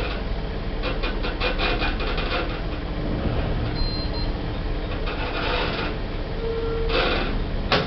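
Schindler lift in operation: the car's running rattle with a run of sharp mechanical clicks, a short high tone about four seconds in, and a brief lower tone near the end.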